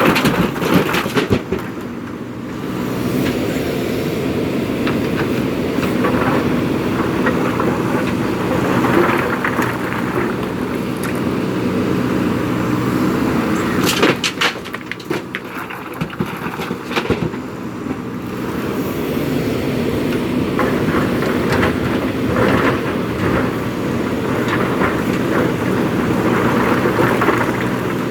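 JCB 3DX Super backhoe loader's diesel engine running steadily while working, with a few sharp clattering knocks about a second in and again around fourteen and seventeen seconds in.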